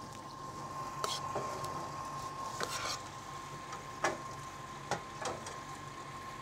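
A metal spoon scraping and clinking against a pan and plates as risotto is spooned out: a handful of scattered short clinks and knocks. A faint steady hum and a thin steady tone run underneath.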